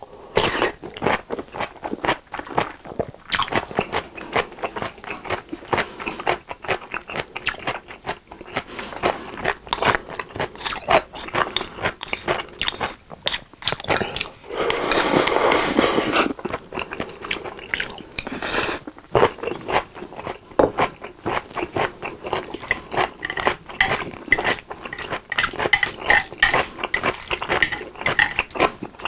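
Close-miked eating sounds: rapid crunchy chewing of a pickle, then a long slurp about halfway through, followed by more wet, clicky chewing and mouth noises.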